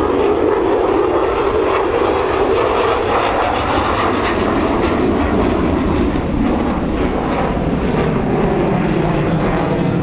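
Loud jet noise from an F-16 Fighting Falcon in its flying display, a steady roar whose pitch sinks slowly as the jet passes and moves away.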